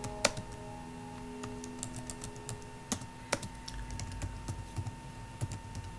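Computer keyboard typing: irregular keystrokes, a few of them much louder clicks, over faint background music.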